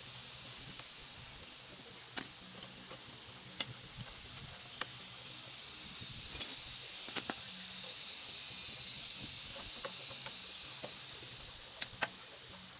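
Hand tools clicking and tapping on a small single-cylinder motorcycle engine during disassembly: about eight short, sharp clicks at uneven intervals, over a steady high hiss.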